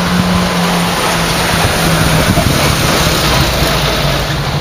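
Diesel locomotive engines running steadily, heard as a low drone whose pitch drops slightly partway through.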